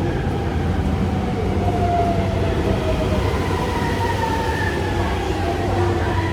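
Subway train running: a steady rumble and low hum with motor whines that glide slowly downward.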